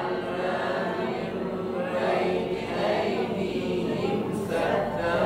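Many voices chanting a Quran verse together in unison, the class repeating the teacher's recitation.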